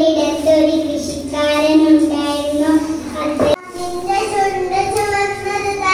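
A young girl singing solo into a microphone, holding long steady notes. About halfway through there is an abrupt cut to a young boy singing solo on higher notes.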